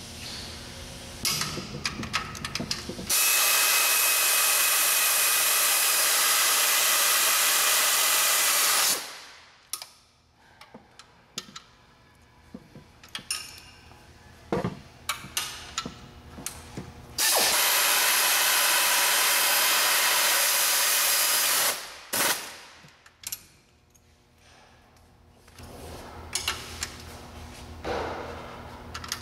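A power tool running in two long, steady runs of about six and five seconds, tightening bolts on the exhaust, with short metallic clicks and clinks of hand tools between them.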